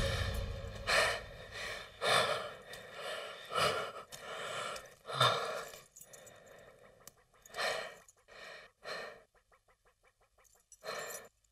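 A man's heavy, gasping breaths, one every second or so, growing fainter and further apart toward the end. A loud burst of noise dies away in the first second, and a faint steady tone lies under the breaths.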